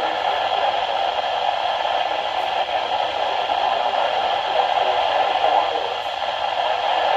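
Radio static: a steady hiss from a radio receiver, strongest in the middle range, with any broadcast voice buried under the noise.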